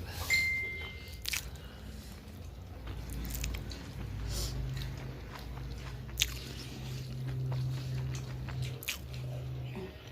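A person chewing and biting into a meal of pork and rayo saag (mustard greens) with rice, with scattered sharp clicks, the loudest about six seconds in.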